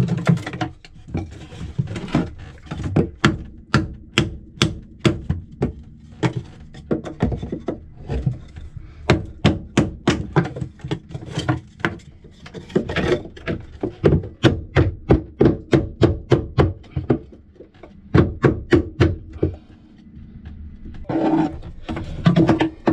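Claw hammer striking a wooden block held against a thru-hull fitting in the hull, a run of sharp blows about two to three a second with a short pause near the end. The blows knock out the old thru-hull to clear the hole for a new one.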